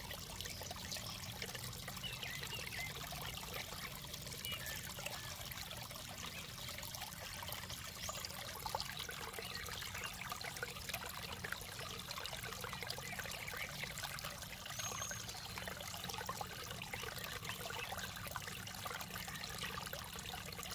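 Shallow water in a drainage ditch trickling steadily over stones, fed by a small cascade spilling from an opening in the bank: a continuous babble full of fine splashes.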